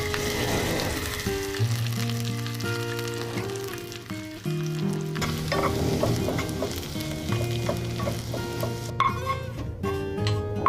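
Sliced red onions sizzling in scallion oil in a small pot as they caramelise, stirred with chopsticks. A soft acoustic guitar track plays underneath.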